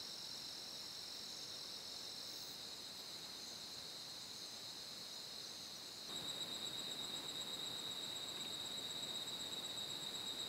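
Steady, high-pitched chorus of night insects such as crickets. About six seconds in it changes abruptly to a slightly louder, steady insect trill.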